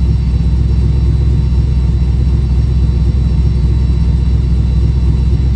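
LS V8 engine of a truck idling steadily, a loud, even low rumble.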